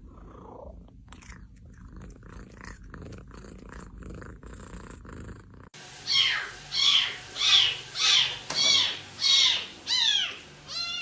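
A cat purring in a low, steady rumble, then, after an abrupt cut a little past halfway, a cat meowing loudly and repeatedly: about eight calls in quick succession, each falling in pitch.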